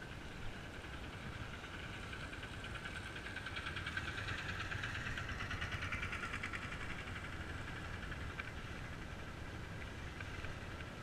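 Bajaj Pulsar motorcycle's single-cylinder engine running as the bike is ridden, with a fast even pulse; it grows louder for a few seconds in the middle, then eases back.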